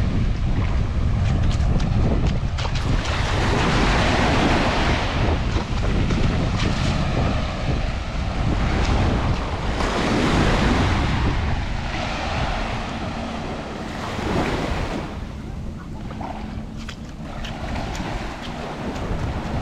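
Surf breaking and washing up a sandy beach, with wind buffeting the microphone. The wash swells and eases in surges, and is quieter over the last few seconds.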